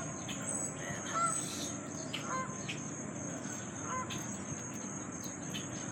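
A few short bird calls over a steady, high-pitched insect drone, with faint rustling and clicks from handling.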